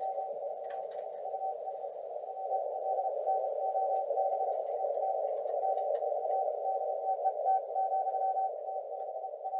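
Morse code (CW) signal coming from a ham radio receiver: a tone keyed on and off in short and longer pieces over a steady hiss of band noise.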